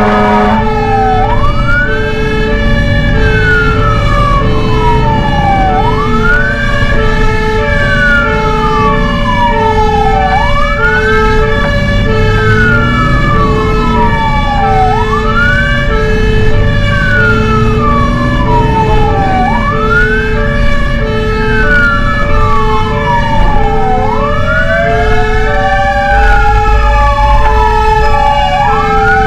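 Fire engine's siren on the wail setting, each cycle rising quickly and falling slowly about every four and a half seconds, over a steady pulsing tone about twice a second and the truck's engine rumble. Near the end a second, lower siren starts a slow rise and fall.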